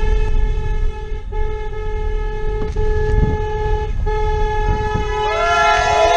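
A car horn held down in long steady blasts, one pitch with short breaks between them, heard from inside the car's cabin. Near the end a crowd's cheering and calls join in.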